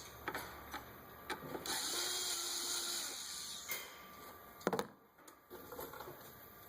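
Handling noise as a camera is set down and hand tools are gathered: scattered clicks and knocks, a hissing scrape lasting about a second and a half in the middle, and one louder knock near the end.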